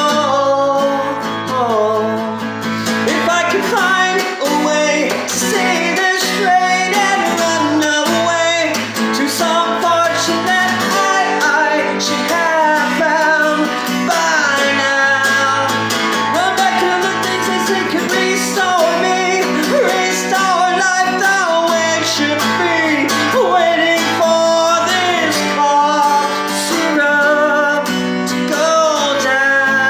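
Guitar strumming steadily, with a voice singing long wordless lines over it.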